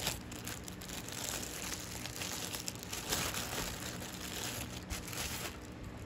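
Clear plastic packaging crinkling and rustling while being handled and pulled open to unwrap a ceiling fan blade.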